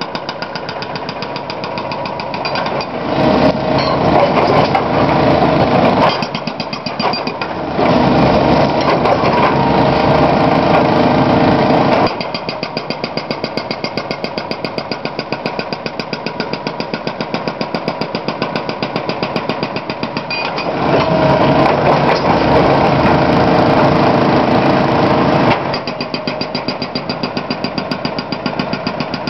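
Excavator-mounted hydraulic breaker hammering on boulders: a fast, even run of blows over the machine's engine. It grows louder in three stretches of a few seconds each.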